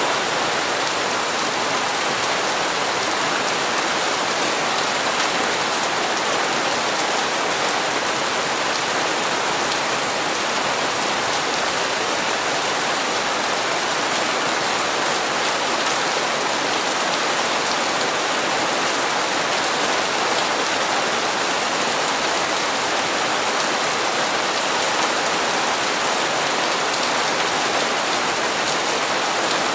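Steady rain falling on hard surfaces, an even hiss of many drops with no thunder or other events.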